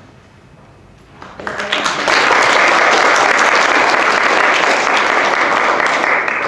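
A roomful of children and adults applauding after a speech: the clapping swells in about a second in, holds steady and dense, and falls away at the end.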